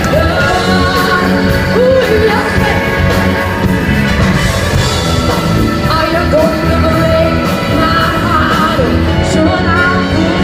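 Live band playing rock music with singing over it, loud and continuous.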